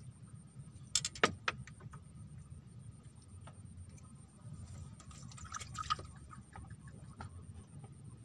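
Scattered sharp clicks and knocks over a low steady rumble, with the loudest cluster about a second in and a smaller one around six seconds in.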